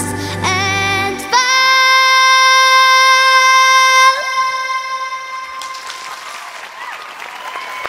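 A young girl's voice holding a long, steady high final note over backing music, ending about four seconds in. The backing music dies away and audience applause starts.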